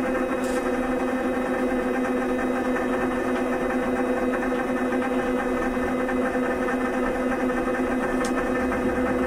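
Vibration therapy apparatus running under a person's knees, its motor giving a steady, even hum with a clear overtone as it shakes the legs.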